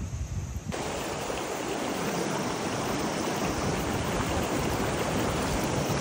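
Fast mountain river rushing over rocks: a steady, full water noise that comes in suddenly less than a second in.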